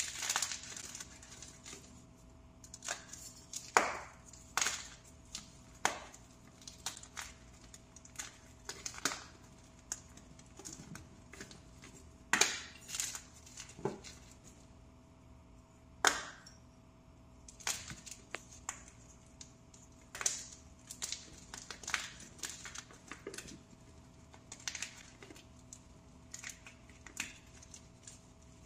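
Fresh, plain pressed-powder blocks crushed by hand: irregular crisp cracks and crunches, a sharp snap every second or two with softer crumbling between.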